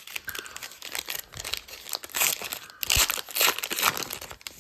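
Foil wrapper of a baseball card pack crinkling and tearing as it is pulled open, in irregular crackly bursts, loudest about two seconds in and again near three and a half seconds.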